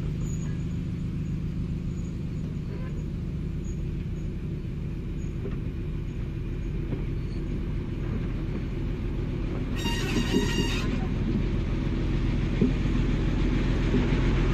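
Diesel engines of the ÖBB 5145 'Blue Lightning' railcar set running as the train approaches, growing slowly louder, with a horn blast of about a second roughly ten seconds in.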